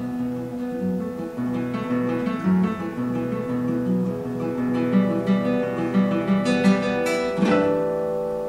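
Solo nylon-string classical guitar, finger-picked: a steady pattern of plucked notes over a repeating bass line. Near the end it builds to a few louder, bright chords that then ring and fade away.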